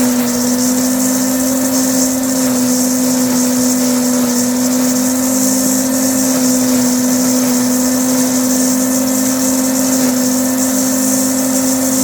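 Sun Joe electric leaf mulcher running steadily at full speed while shredding hay: a constant motor hum with a hiss above it.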